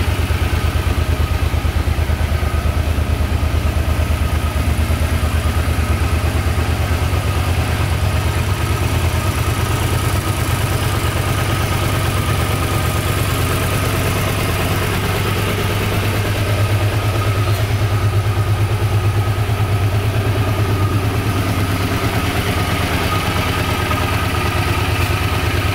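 Suzuki Intruder 800's 805 cc V-twin engine idling steadily, with an even low pulse.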